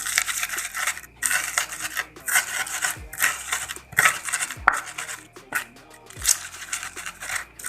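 Stone pestle grinding spices (garlic, shallots, chilli) against a stone mortar: rasping, rubbing strokes, a little faster than one a second, some ending in a dull knock. Faint background music underneath.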